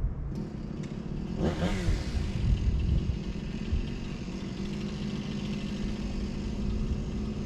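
An engine running steadily, revved up and back down about one and a half seconds in.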